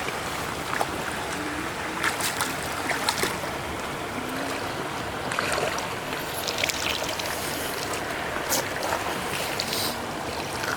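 Steady rush of flowing stream water, with a few short knocks scattered through it.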